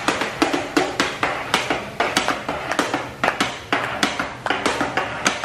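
Metal spatulas rapping on a teppanyaki steel hotplate in a fast, even rhythm of about four strikes a second, each strike with a short ring.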